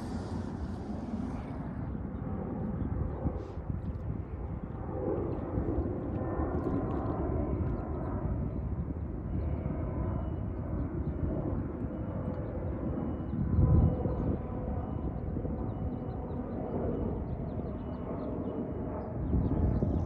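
Distant airplane passing overhead: a steady low rumble, with a faint high whine joining about halfway through. A brief low thump comes about two-thirds of the way in.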